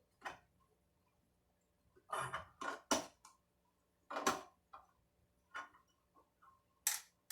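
Irregular metallic clinks and taps, about eight in all with a small cluster around two to three seconds in, as tools and parts are handled while setting up a router table.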